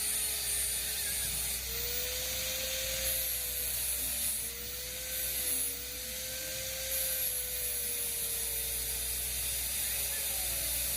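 A steady high-pitched hiss, with a faint wavering hum underneath.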